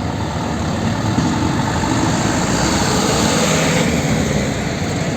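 Heavy truck engine running steadily.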